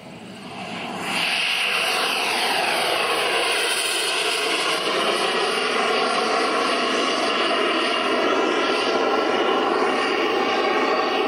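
Twin ATJ-170ti model jet turbines at high power as a giant-scale RC MiG-25 takes off and climbs away. It is a loud rushing roar with a turbine whine that slides in pitch. It swells over the first second and then holds steady.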